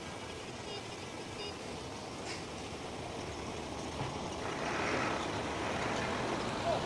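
Heavy earth-moving machinery running, a diesel engine's steady noise that grows louder about four and a half seconds in. Two faint short beeps in the first couple of seconds sound like a reversing alarm.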